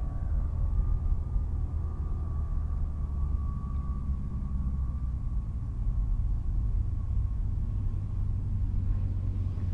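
Light piston-engine aircraft running steadily, a deep rumble with a faint thin whine above it that slowly fades.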